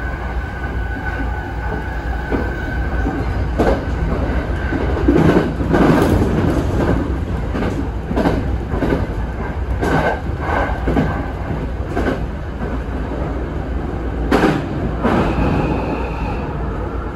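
E217 series electric train running, heard from inside the driver's cab: a steady low rumble with repeated irregular clacks of the wheels over track joints and points. A faint whine at the start fades away.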